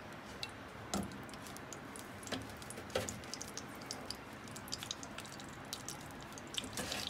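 Ghee melting in a hot pan, giving faint scattered crackles and tiny pops that grow more frequent as it heats. A few soft knocks come about one and three seconds in.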